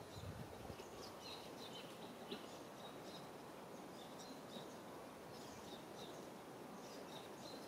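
Outdoor ambience of small birds chirping repeatedly in the background over a steady hiss.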